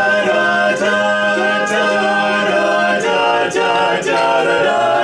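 Barbershop quartet of four men singing a cappella in close harmony. A low note holds steady for the first three seconds while the higher voices move above it.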